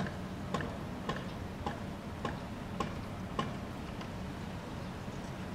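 Sharp regular ticks, a little under two a second, that stop about three and a half seconds in, over a steady low hum.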